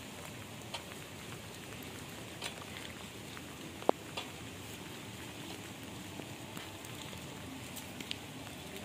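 Wood fire under a large cooking pot crackling and hissing steadily, with scattered small pops and one sharp crack about four seconds in as the embers are stirred with a stick.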